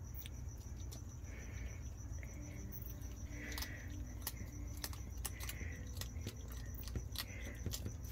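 A cricket chirping steadily in a rapid, even pulse, with skunks eating close by: irregular sharp crunching clicks as they chew the food.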